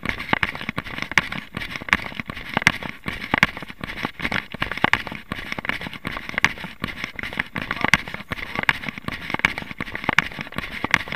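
A runner's footsteps crunching on a gravel track, a quick, uneven series of sharp crunches and knocks several times a second.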